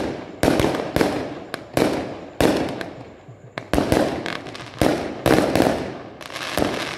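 Aerial fireworks going off in quick, irregular succession: about a dozen sharp bangs, each dying away in an echoing tail.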